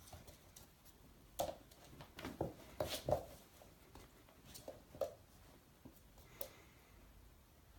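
Faint scattered clicks and soft rustles, coming in a few short clusters: a Shiba Inu puppy's claws tapping on a hard floor as it scrabbles about on a blanket.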